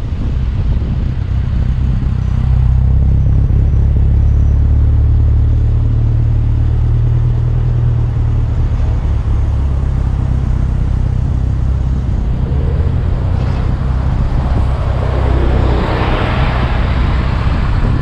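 Triumph car's engine running on the move, a steady low drone that grows louder from about three seconds in and eases off after about nine, with a rush of wind and road noise swelling near the end.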